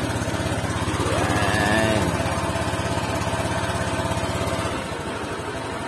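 Honda Click 125i scooter's single-cylinder engine running on test after a torque drive needle bearing replacement, revved up and back down about a second in, then running evenly and easing off a little near the end. No abnormal drive noise: the new bearing has cured the earlier noise.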